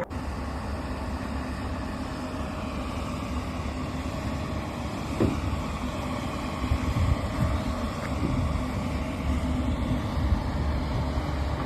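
A motor vehicle running with a steady low rumble, with a short knock about five seconds in.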